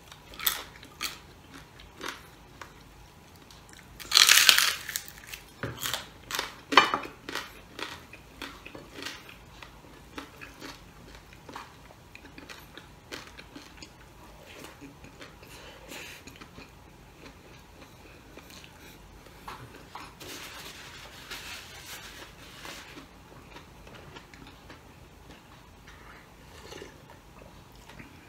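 Crunching bites into crispy pata (deep-fried pork knuckle) skin and close-up chewing, with the loudest crunch about four seconds in and more sharp crunches near seven seconds. Light clinks of a plate or cutlery come now and then.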